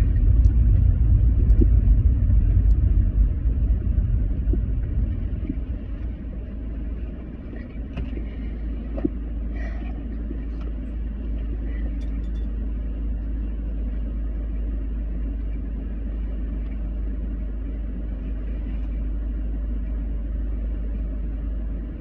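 A low, steady rumble, loudest over the first few seconds and then settling to a lower, even level, with a few faint clicks.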